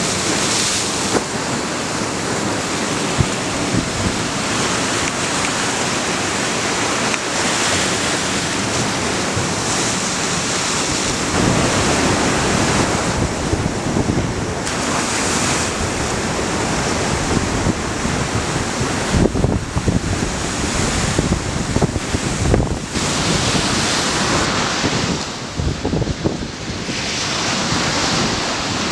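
Ocean surf breaking and washing onto a beach: continuous rushing that swells and eases every few seconds, with wind gusting on the microphone.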